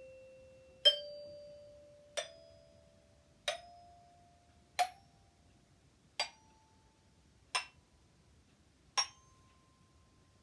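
Single resonator bars (lames sonores) struck one at a time in a slowly rising scale: seven ringing notes about a second and a half apart, each a step higher than the last.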